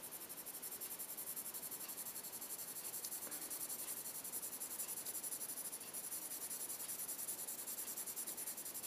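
Powder-blue Prismacolor colored pencil shading on paper in quick, even back-and-forth strokes, a steady scratching rub.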